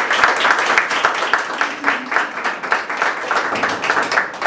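A small audience applauding, many separate hand claps at once, dying away near the end.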